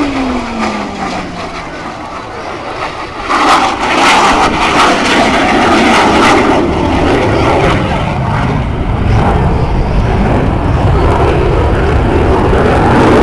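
Blue Angels F/A-18 Hornet jet passing overhead. A falling whine comes first, then the engine roar swells suddenly about three and a half seconds in, with a crackle, and stays loud.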